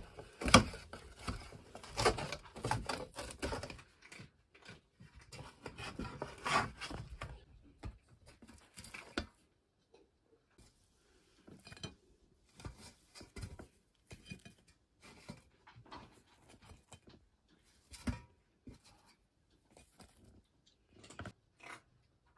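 A thin metal utensil scraping and clicking against a black frying pan as fried pastries are pried off it, with many quick scrapes over the first several seconds, then sparser clicks and knocks.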